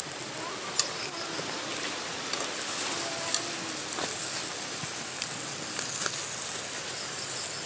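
Pork ears and intestines sizzling on a wire grill over charcoal, a steady hiss with a few sharp clicks through it.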